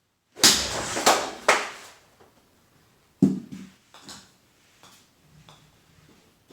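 Golf shots hit in a garage: a loud, noisy burst with three sharp knocks over about a second and a half, then a single sharp knock with a low thud, followed by a few fainter knocks.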